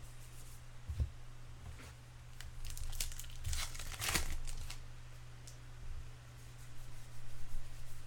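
Baseball cards and pack wrapper being handled: soft rustling and crinkling, loudest about three to four seconds in.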